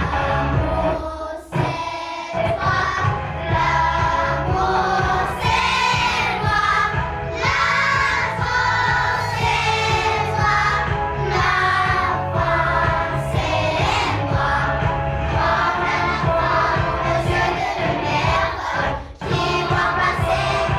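A group of children singing together over a backing track with a steady beat; the music dips briefly near the end.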